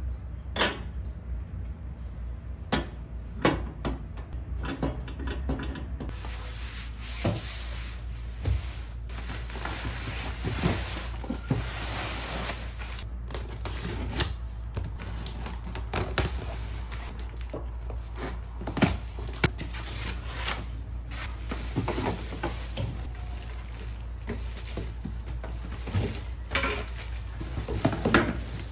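A glass microwave turntable plate knocked and clinked as it is handled, then scissors slitting packing tape on a cardboard box, with cardboard flaps and plastic-wrapped panels rustling as the box is opened. Separate sharp clinks come first; from about six seconds in there is a continual rustle broken by frequent clicks.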